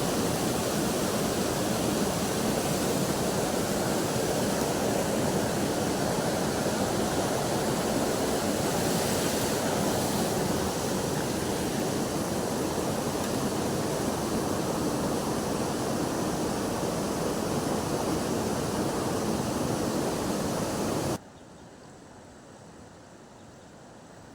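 Rushing river water, a loud steady hiss that cuts off suddenly near the end, leaving only a faint background hiss.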